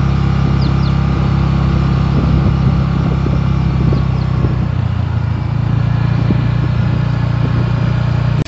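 A vehicle's engine running steadily while driving along a road, heard from on board as a deep, even drone.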